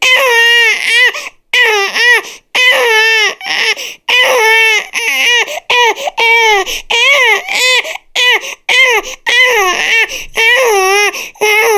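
Baby crying hard: a string of loud, high wavering wails, each about a second long, broken by short pauses for breath.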